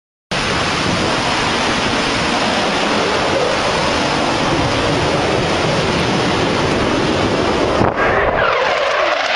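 A loud, steady rushing roar, then from about eight seconds in a fighter jet passing low, its engine whine falling in pitch as it goes by.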